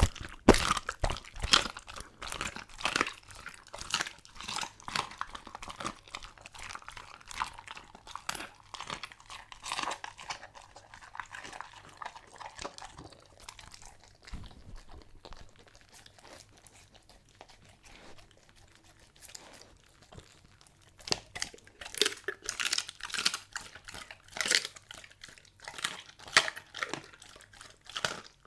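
German Shepherd chewing and crunching a raw meal of meat and bone, heard close up: bouts of crackling crunches and wet chewing, thinning out for several seconds in the middle before picking up again.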